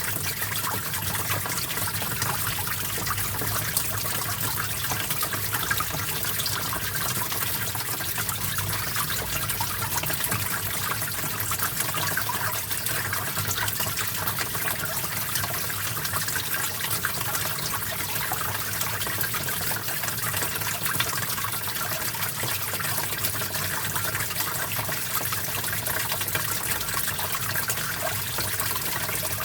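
Small stream of water flowing steadily, a continuous dense trickling and splashing.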